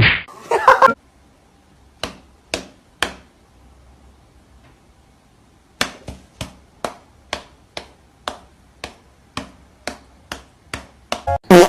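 Sharp taps, three spaced apart, then a steady run of about two a second, with a louder burst near the end.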